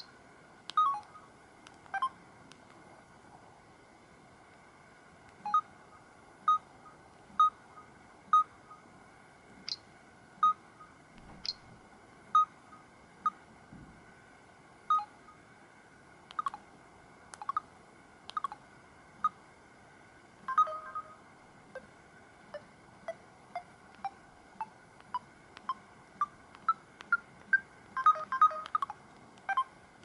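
Samsung Corby GT-S3650 touchscreen tap tones: short beeps, about one a second, coming quicker near the end, over a faint steady high whine.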